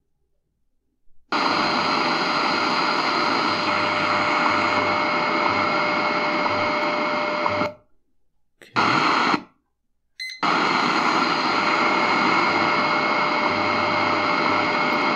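Shortwave static hissing loudly from the C.Crane CCRadio SW's speaker, with faint steady whistle tones under it. The radio is silent for about the first second, then cuts out twice in the middle as new frequencies are keyed in, and hisses again to the end.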